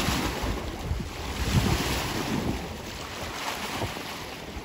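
Wind buffeting the microphone: a rushing noise, heaviest in the low end, that swells and eases in gusts.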